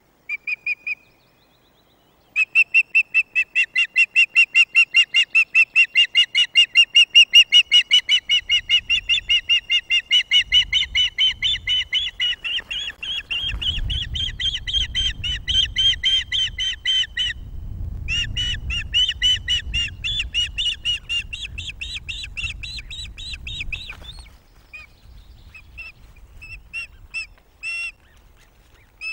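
Female osprey fish-calling: a long, insistent run of high piping call notes, repeated about three times a second, soliciting food from her mate as he brings in a fish. The calls pause briefly, resume, then fade to scattered single notes near the end. A low rumble of noise runs beneath them through the middle.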